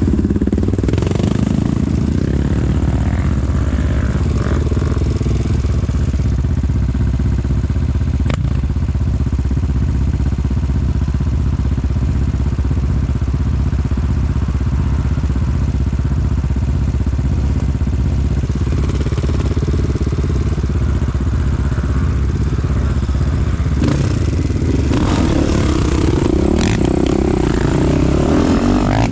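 Off-road trail motorcycle engine running steadily as the bike rides along, with a continuous low rumble and little change in pitch.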